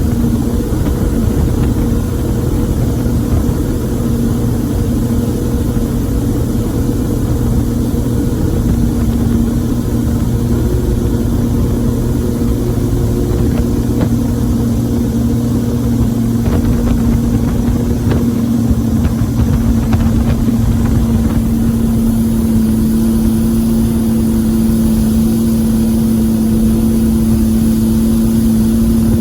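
Boat motor running steadily under way, a loud even hum with noise beneath; its pitch shifts slightly about two-thirds of the way through.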